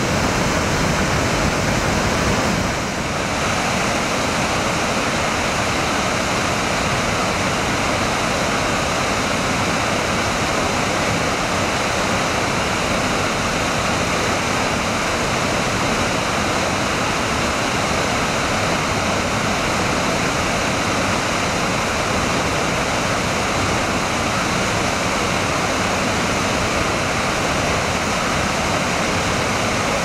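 Christine Falls, a waterfall plunging through a narrow rock gorge, rushing in a steady, loud wash of water noise, with a slight drop in level about three seconds in.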